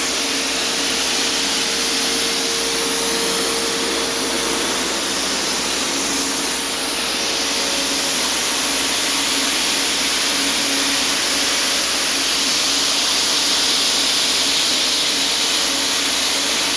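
Loud, steady rushing hiss of an air-powered soda blaster blasting baking-soda media, with a faint steady hum beneath.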